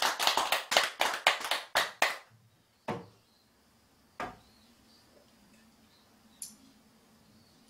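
Hands clapping in an even rhythm, about four claps a second, stopping about two seconds in. Then two single knocks about a second apart.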